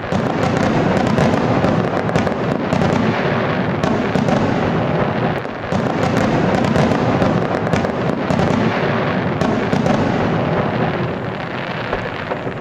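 Aerial fireworks display: a dense, unbroken barrage of shell bursts, bangs and crackling.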